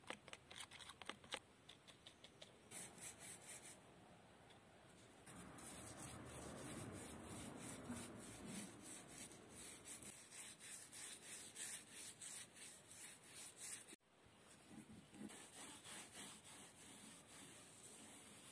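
Faint clicks of a wooden stick stirring liquid in a plastic cup, then a cloth rubbed back and forth over the steel handle of a nail puller in rhythmic wiping strokes.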